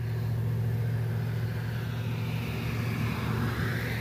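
A car passing on a nearby road, its tyre and engine noise building toward the end, over a steady low hum.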